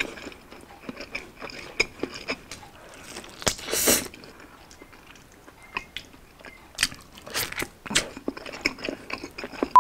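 Biting into and chewing a grilled Hungarian sausage and a thick slice of Spam, with many small wet mouth clicks. The loudest bite comes about three and a half seconds in, and there are smaller ones around seven seconds.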